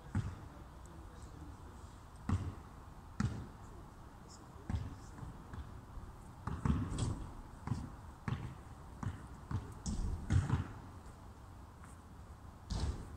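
Irregular dull thumps, about a dozen, spaced unevenly and bunched between about six and eleven seconds in, the loudest near the end.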